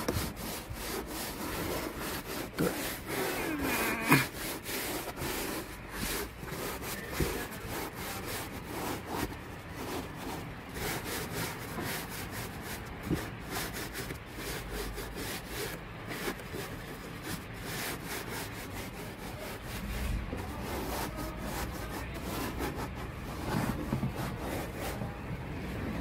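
A sponge scrubbing the shampoo-foamed roof lining of a Mahindra Bolero, making a quick back-and-forth rubbing sound. A sharper knock comes about four seconds in.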